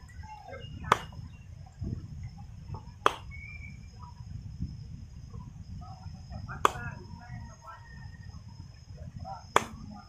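Four sharp cracks about three seconds apart from the masseur's hands working the client's oiled arm, hand and back, over a steady low rumble.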